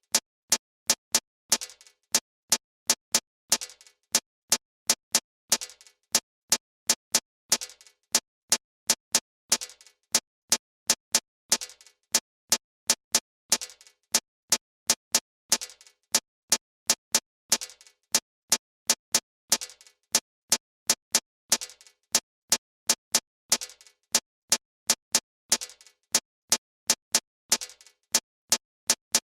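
Maize kernels dropping one by one onto a comal griddle, each landing a sharp click. The clicks come about three or four a second in an even, repeating pattern.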